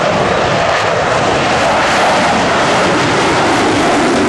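Jet engines of four F-16 Fighting Falcons flying by in formation: a loud, steady rushing noise.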